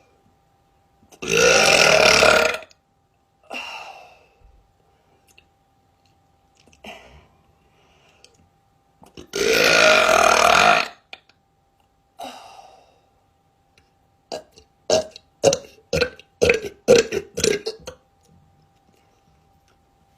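A woman burping: two long, loud burps that rise in pitch, about eight seconds apart, then a quick run of about eight short burps.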